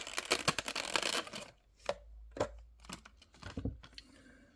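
Rustling and crackling of plastic and cardboard packaging for about a second and a half, then a few separate light clicks and taps as a small diecast model car is unpacked and handled.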